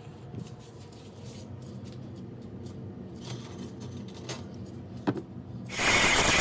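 Low steady hum with scattered light clicks, then, close to six seconds in, a small bench belt grinder loudly grinding saw-blade steel as the blade is profiled.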